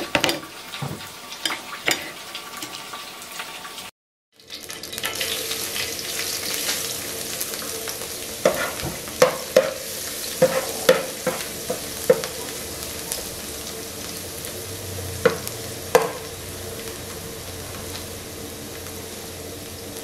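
Chopped garlic sizzling in oil in a nonstick frying pan, with a steady hiss, while a spatula stirs it and knocks and scrapes against the pan several times in the middle part. Before the hiss starts there are a few light knocks and a short break.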